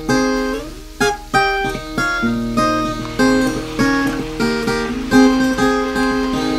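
Background music of a plucked and strummed acoustic guitar, note after note.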